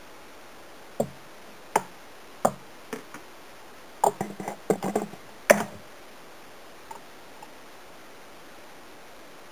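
Sharp knocks and clinks of kitchenware, a cup against a mixing bowl and glassware set on the countertop, about a dozen in all. A few come singly, then a quick cluster falls from about four to six seconds in. Under them runs a steady low hiss.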